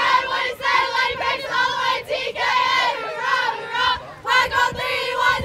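Softball team chanting a cheer together in a huddle: many young women's voices in unison, half sung, half shouted, in rhythmic phrases with short breaks between them.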